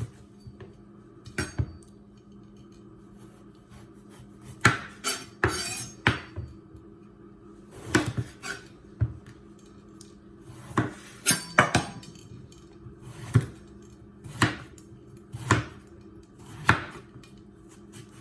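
Knife cutting eggplant on a cutting board: about a dozen sharp knocks of the blade striking the board, unevenly spaced a second or two apart.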